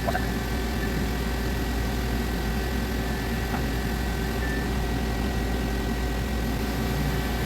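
CNC lathe taking a turning cut in a canned cycle, running steadily with a low hum and a few constant tones. A magnet is stuck on the back of the workpiece to quiet the earlier bad-sounding vibration, and the cut now runs on evenly.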